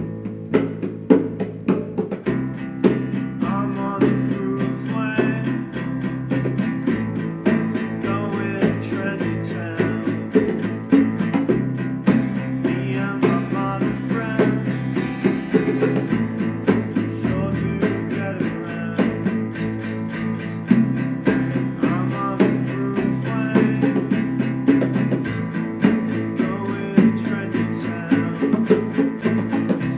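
A band song: guitars over a drum kit's steady beat, with a voice singing.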